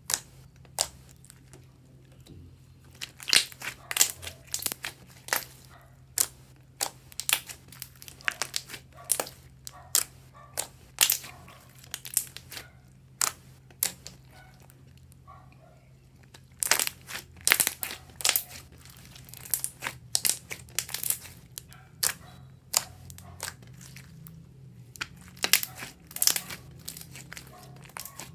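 Slime being squished and worked by hand, giving irregular sharp crackles and pops in clusters, with short pauses.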